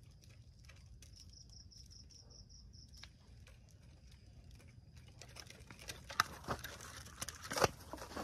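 A high insect trill pulsing rapidly for the first three seconds. Then close rustling and sharp clicks from about five seconds on, loudest near the end.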